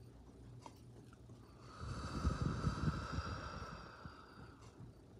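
One slow, deep breath, starting about two seconds in and lasting nearly three seconds, with the air rumbling on the phone's microphone.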